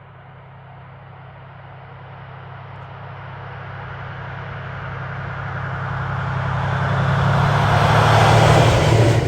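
A train approaching, growing steadily louder, with a steady low engine drone under rising rushing noise that peaks near the end.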